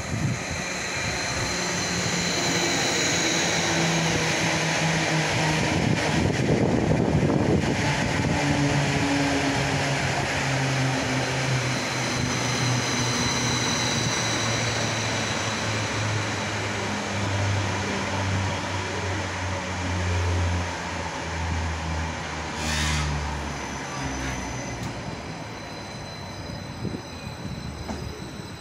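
Greater Anglia Stadler FLIRT electric multiple unit running into the platform and slowing to a stop. Its traction motors give a hum that slowly falls in pitch over wheel and rail noise, with a short hiss near the end.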